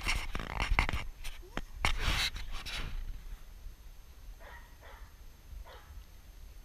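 Dog panting close to the camera, with rubbing and knocking noises from handling and petting during the first three seconds, then fainter short breaths.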